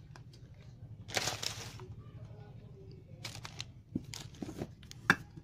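Plastic snack and noodle packets crinkling as they are handled in a cardboard box, in several short bursts, the sharpest about five seconds in.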